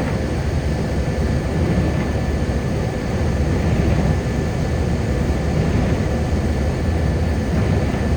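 Steady road noise of a car cruising on a wet highway: a low rumble with the hiss of tyres on wet pavement, plus a faint steady whine.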